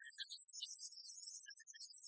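Faint, thin background music made of scattered short high-pitched notes and chirps, with no low end. No excavator or demolition noise is heard.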